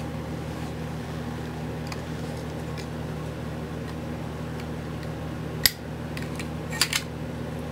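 Metal parts of a BMW E30 limited-slip differential knocking together as they are handled: one sharp click about five and a half seconds in and two lighter clicks about a second later, over a steady background hum.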